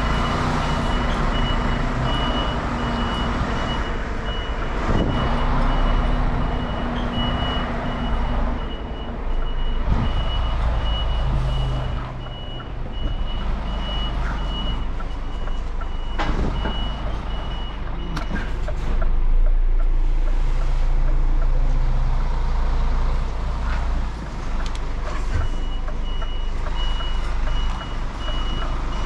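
Reversing alarm on an articulated lorry beeping in a steady, even series while the truck backs its trailer, over the low running of the Scania tractor unit's diesel engine. The beeping stops for several seconds past the middle, then starts again near the end.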